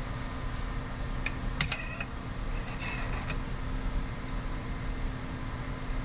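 Steady mechanical hum of a fan running, with a few light metal clinks about a second and a half in and a short rattle about three seconds in as metal tractor parts are handled.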